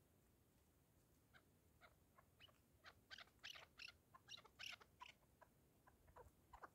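Faint chukar partridge calls: a run of short, sharp clucking notes that starts about a second and a half in, comes thickest in the middle, then thins out.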